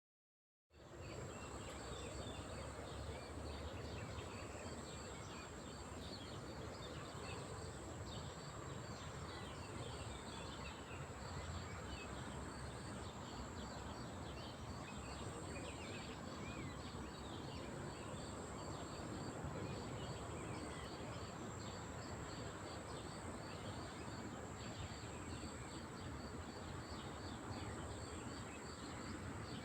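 Lakeside outdoor ambience: a steady bed of background noise with many small birds chirping throughout and a steady high-pitched drone above it, starting abruptly under a second in.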